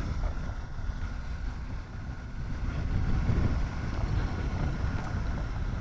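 BMW R1200GS boxer-twin engine running at low revs as the motorcycle rides along, a steady low rumble with wind noise on the microphone.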